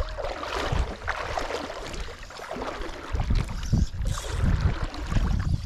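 Wind buffeting a body-worn camera's microphone: an uneven low rumble that gusts up and down, with a faint hiss over it.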